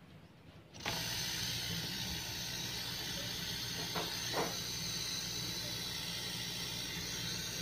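New hermetic refrigerator compressor starting up about a second in when powered for a bench test, then running steadily with a low electrical hum and hiss; it is drawing about 0.97 A, a healthy running current. A couple of light clicks about four seconds in.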